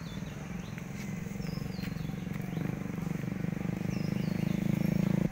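Motorbike engine running with a low, rough drone that grows louder toward the end as it comes closer, then cuts off suddenly.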